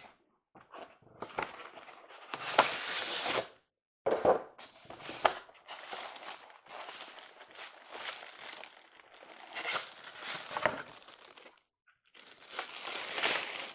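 Packaging being handled: a plastic bag crinkling and cardboard rustling as an O-gauge model boxcar is slid out of its box and lifted from a foam tray, in irregular bursts with two short pauses.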